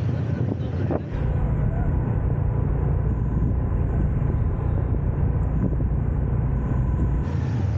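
Busy city street traffic heard while riding through it: a steady mix of motorbike and car engines over a heavy low rumble. The rumble deepens about a second in and eases near the end.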